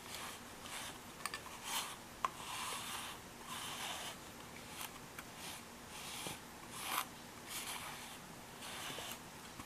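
A yellow slicker brush's bristles stroking through a cat's fur, a faint soft scratching stroke about once or twice a second.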